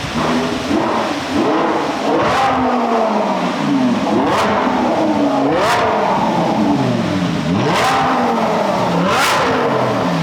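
Supercharged Lamborghini Huracán V10 accelerating hard through the gears, its pitch climbing and then dropping sharply at each of about five upshifts, with a short crack at each shift.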